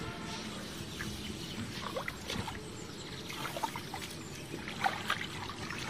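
Shallow, muddy ditch water trickling and sloshing as hands feel through it, with scattered small splashes.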